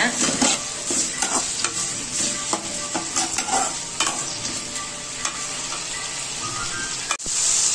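Chopped shallots, garlic and tomato sizzling in oil in an aluminium kadai, stirred with a slotted metal spatula that scrapes and knocks against the pan. Near the end the sound breaks off briefly and comes back as a louder, steadier sizzle.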